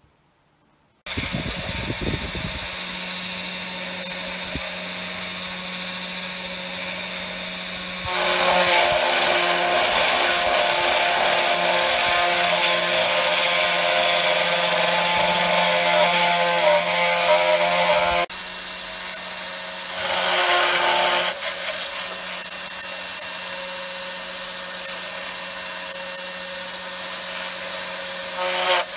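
A 3018 Pro desktop CNC router's spindle running steadily with a V-bit carving oak, starting about a second in. The cutting noise grows louder for about ten seconds in the middle and once more briefly later.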